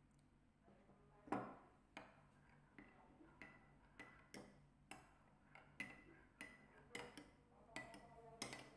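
Metal spoon stirring cornflour and sauce in a small ceramic bowl, clinking lightly against the bowl's side about twice a second, with one louder clink about a second in.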